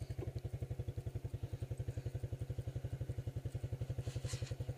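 Small vehicle engine running at a low, steady speed, an even chugging of about fourteen pulses a second.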